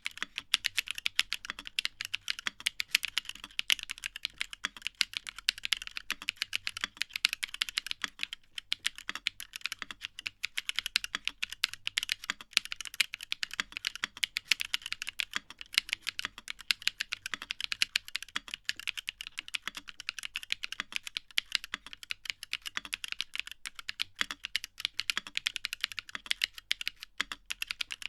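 Continuous fast typing on a Fuji65 mechanical keyboard with LiChicx Caramel Chocolate linear switches, JTK keycaps and an aluminium plate with no foam: a dense run of key strikes and bottom-outs, with a brief lull about eight and a half seconds in.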